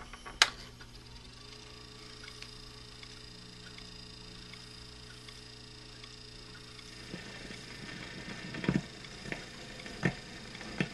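A sharp click about half a second in, then a faint steady hum from the phonograph. From about seven seconds the needle runs in the lead-in groove of a 78 rpm shellac record: surface hiss and crackle with a few loud pops before the music starts.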